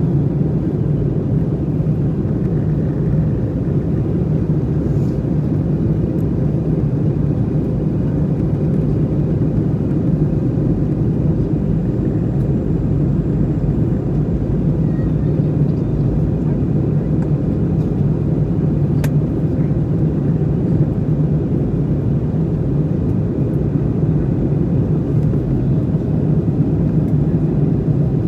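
Steady in-flight cabin noise of an Airbus A321: an even, low rumble of the engines and the air rushing past the fuselage.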